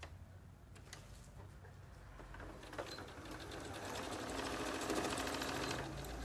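Domestic electric sewing machine stitching a short seam: a few light clicks, then the motor and needle start about two seconds in and run up to a fast, even stitching rattle that stops near the end.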